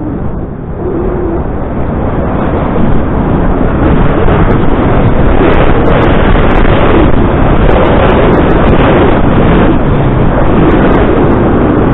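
Loud wind noise buffeting the camera's microphone: the rush of air past a paraglider pilot as he runs off the slope and flies. It grows about three seconds in and stays strong.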